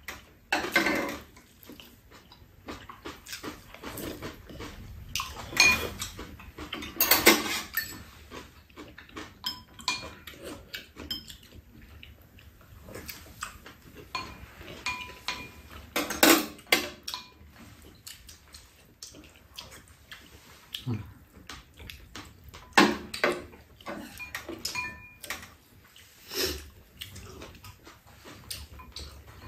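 Two people eating soup: spoons and chopsticks clinking on ceramic bowls, with slurping and chewing, in irregular bursts.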